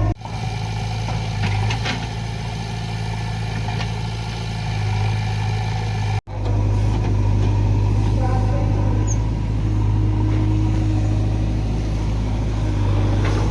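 Heavy diesel engine running steadily with a low hum, cut off abruptly twice for a split second, just after the start and about six seconds in.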